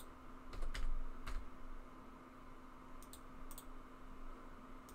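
A few scattered computer keyboard key presses and mouse clicks, over a faint steady hum.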